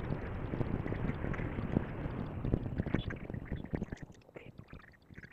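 Scooter clutch cover being handled and set onto the engine crankcase: scraping and rubbing with many small metal clicks, dying down to a few scattered taps about four seconds in.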